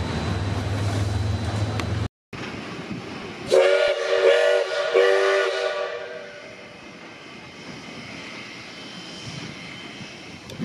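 A steady low hum cuts off about two seconds in. Then a multi-note chime air horn sounds three blasts, the third one longer, before quieter outdoor background.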